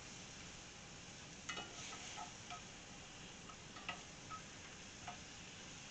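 Asparagus sizzling faintly in butter in a cast-iron skillet, a steady hiss broken by a few light clicks of a utensil against the pan.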